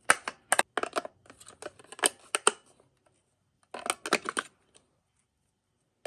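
Batteries being pushed and clicked into the plastic battery compartment of a battery-powered LED motion-sensor light: a quick run of sharp clicks and rattles, a pause, then a second short cluster about four seconds in.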